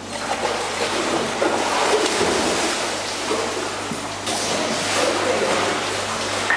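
Water splashing and sloshing as a dog swims across an indoor pool, over a steady low hum.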